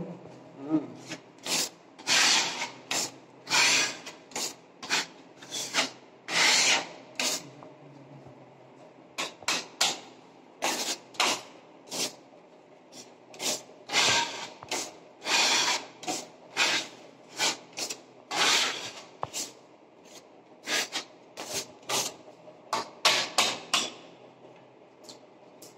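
Putty knife spreading and scraping wall putty across a plastered surface in many short, irregular rasping strokes, filling small holes as touch-up before repainting.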